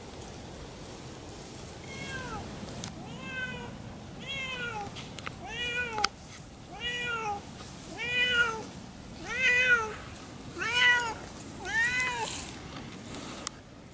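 Siamese cat meowing over and over: about nine long meows a little over a second apart, each rising and then falling in pitch, starting about two seconds in and growing louder.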